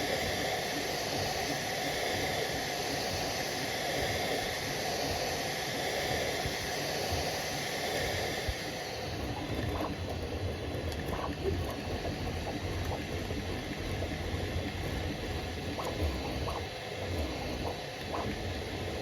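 Bambu Lab A1 3D printer running: a steady fan hiss for the first half, then the hiss drops and short whirring stepper-motor moves come through over a low hum.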